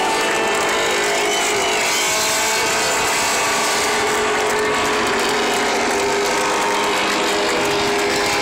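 Steady, loud rattling and clattering din from a trackside grandstand crowd, with sustained horn-like tones mixed in.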